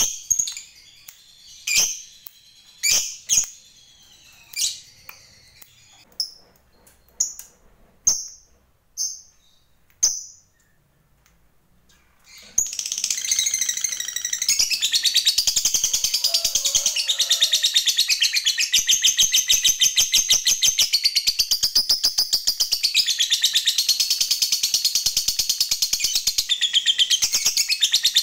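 Lovebird calling: sharp single chirps about a second apart, then after a short pause a long unbroken rapid chattering trill, the 'ngekek' song, that runs on without a break.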